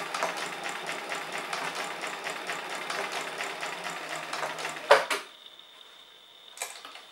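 Bernina Record 930 sewing machine running at speed in its basting mode, which makes only every fourth stitch, with a fast, even mechanical clatter. It stops abruptly with a loud clack about five seconds in, and one short click follows near the end.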